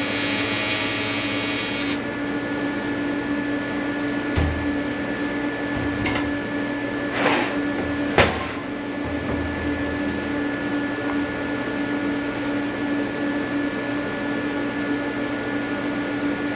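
AC square-wave TIG welding arc from an Everlast 325EXT buzzing, then cutting off about two seconds in. After that a steady electrical hum carries on, with a few short knocks and clicks a few seconds later.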